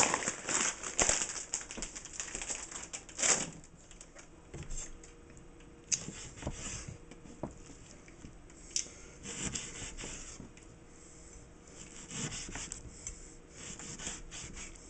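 Hands handling mahi-mahi fillets on a wooden cutting board, then a chef's knife slicing through the fish against the board. Irregular rubbing noises and a few sharp knocks on the wood.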